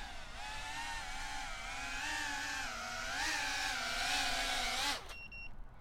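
iFlight Protek35 3.5-inch ducted cinewhoop drone on its stock 3-blade props, its motors and props giving a buzzing whine that wavers up and down in pitch with the throttle and grows louder. It stops abruptly about five seconds in.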